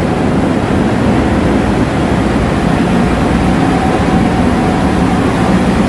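Steady, loud din of a ship's engine room with its machinery running: engines, pumps and ventilation blend into one even low noise, with a faint steady whine in the second half.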